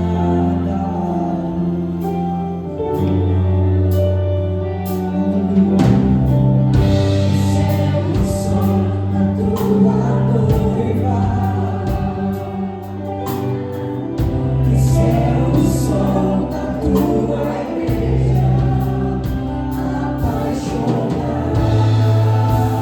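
Slow gospel worship music: long held chords over sustained bass notes that change every few seconds, with choir-like singing.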